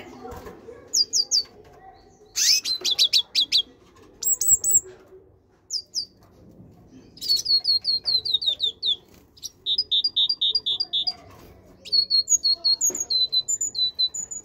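Caged great tit singing: phrase after phrase of short, high notes, each sliding down in pitch, given in quick runs of three to ten with brief pauses between runs.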